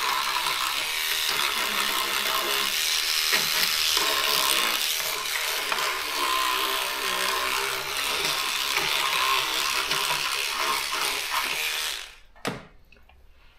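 Electric cleaning brush running and scrubbing the textured plastic housing of a typewriter, with soap. It cuts off suddenly about twelve seconds in, followed by a single click.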